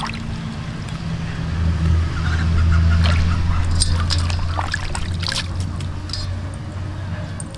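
Water sloshing and splashing as hands rub and rinse oyster mushrooms in a metal basin, with small irregular splashes and clicks, over a low steady hum.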